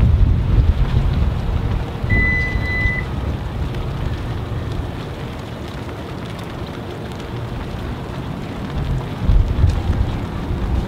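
Wind buffeting the microphone with a low rumble, gusting harder near the end. About two seconds in, a single high electronic beep sounds for about a second.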